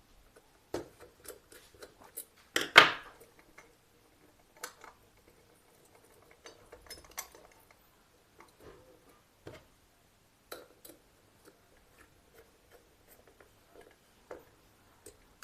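Scattered small clicks and ticks of hand work on a plastic power-plug switchboard as a wire is fitted and screwed into a switch terminal, with one louder knock about three seconds in.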